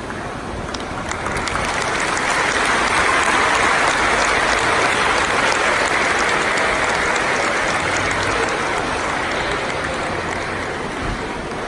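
Applause from a small group, swelling over the first few seconds and then slowly dying away toward the end.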